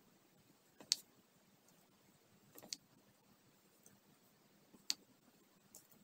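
Diamond-painting pen tapping round resin drills as they are picked up and pressed onto the adhesive canvas: about five light clicks, irregularly spaced, a quick pair in the middle, the sharpest about a second in.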